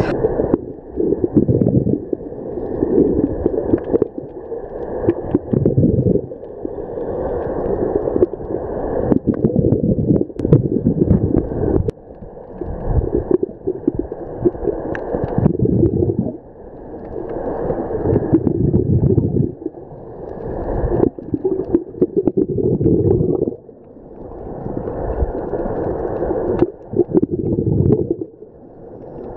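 Scuba diver breathing through a regulator underwater, with bubbles gurgling out on each exhale, about one breath every three to four seconds.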